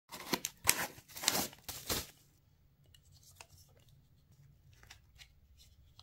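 A hard plastic emergency hammer and its plastic mounting bracket handled in the hands: about two seconds of loud rustling and scraping, then faint scattered clicks and taps.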